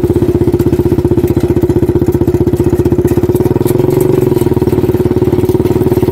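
Small engine of a homemade mini tractor built as a Ford 3600 replica, running with an even, rapid chugging beat as it pulls a loaded trailer; the pitch rises slightly about four seconds in.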